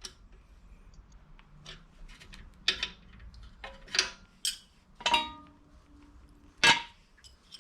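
Metal brake parts being handled and fitted at the rear caliper: scattered light clicks and knocks, a ringing metallic clink about five seconds in, and a sharper click near the end.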